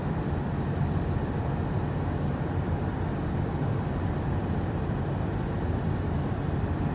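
Steady cabin noise of a moving car: a low engine hum under tyre and road noise, unchanging throughout.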